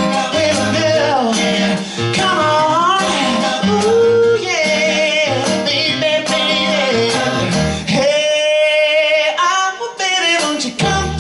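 Male vocal group singing over a band, with a low bass line under the voices. About eight seconds in, one long note is held while the bass drops out, then the band comes back in.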